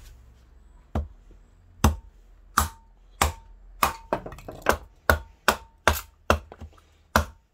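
Large knife chopping down into the top of a sawn wooden log, splitting a wedge of wood away: about a dozen sharp wooden knocks, coming faster after the first few, many followed by a brief metallic ring from the blade.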